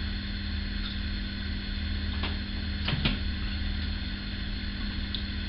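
Steady electrical room hum, like a fan or mains hum, with a couple of faint brief clicks a little past the middle.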